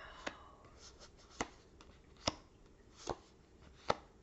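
Tarot cards dealt one by one onto a table: five soft, sharp taps about a second apart.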